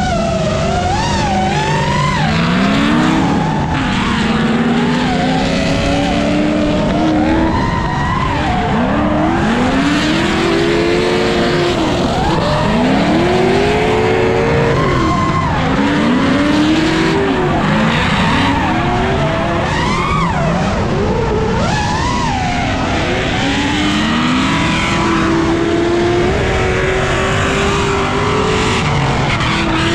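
Drift car engine revving up and falling back again and again, with tyres squealing and skidding throughout.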